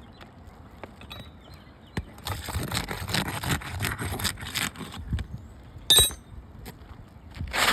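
Gritty scraping and rustling of an asphalt shingle being pried and worked loose with roofing tools, in many short strokes, then a single sharp metallic clink about six seconds in.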